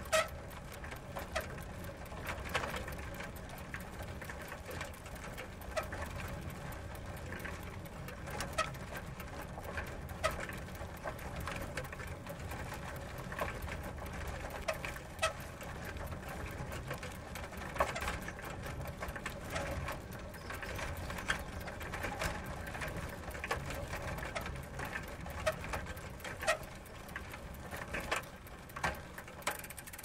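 Bicycle running: a fast, even mechanical ticking from its drivetrain over a steady low rumble, with a louder click every second or two.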